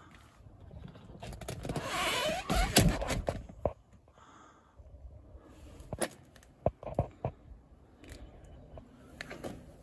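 Rustling and handling noise as someone moves about inside a car with a handheld camera, loudest a couple of seconds in. It is followed by a few short sharp clicks and knocks about six to seven seconds in.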